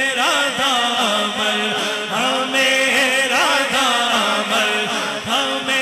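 Male voice singing an Urdu naat into a microphone, drawing out a long wavering melismatic line between verses, over a steady held drone.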